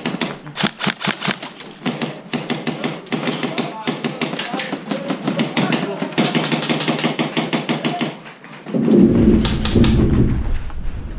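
Airsoft guns firing: rapid, irregular sharp cracks, several a second, from more than one shooter. About nine seconds in the shots stop and a loud low rumble lasts about two seconds.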